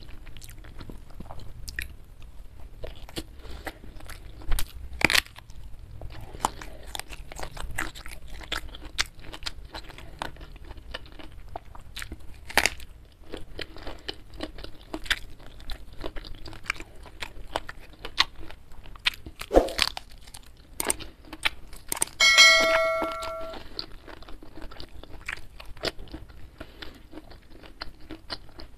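Close-up eating sounds: wet chewing with sharp crunches and bites as rice, fried chicken and raw young eggplant are eaten by hand. About three quarters of the way through there is a short ringing clink of something hard being struck, and it fades over about a second.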